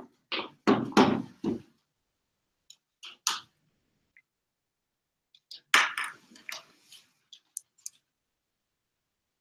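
Handling noise as a laptop is set up on a lectern stand: several knocks and clatters in the first second and a half, another bout about six seconds in, and scattered light clicks between and after.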